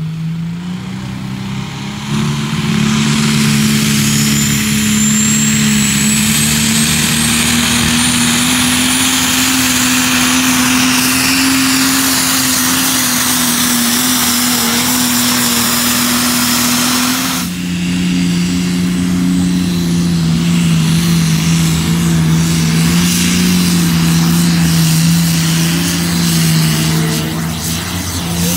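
Tractor engine pulling hard under load at a tractor pull, with a thin whistle rising over its first several seconds. About two-thirds of the way through, the loud rush drops away and the engine settles to a lower, steady note.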